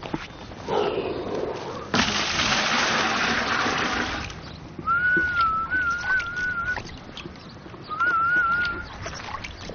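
Water poured from a bucket into a plastic tub, splashing for about two seconds. It is followed by two warbling whistled phrases, a longer one and then a short one.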